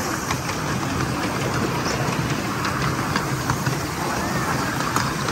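Ride-on miniature railway train running along its track, heard from a passenger car: a steady rumble of wheels on rail with scattered sharp clicks.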